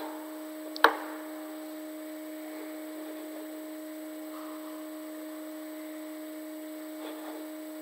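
Steady electrical hum with no speech, broken by a single sharp click about a second in.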